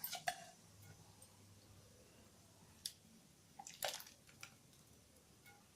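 Near silence with a few faint clicks and taps of a utensil, the loudest about four seconds in, as ground spinach paste is added to a pan of hot water.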